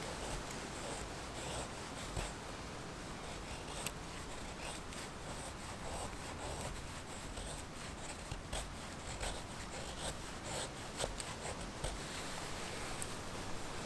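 Knife blade shaving thin curls down a wooden stick to make a feather stick: a series of short scraping strokes.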